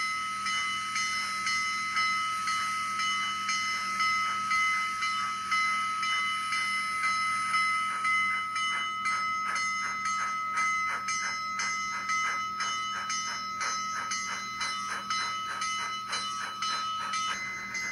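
N scale Athearn Union Pacific Challenger with an ESU LokSound V5 micro decoder playing the UP Challenger steam sound file through its small sugar-cube speakers: rhythmic exhaust chuffs that quicken to about three or four a second from about halfway through, over a steady high tone that stops near the end.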